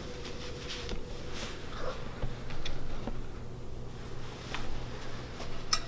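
Quiet room tone with a steady low hum and a few faint scattered clicks and rustles, and a sharper click near the end.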